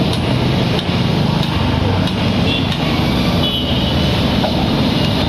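Steady rumble of street traffic, with a motor vehicle engine running close by.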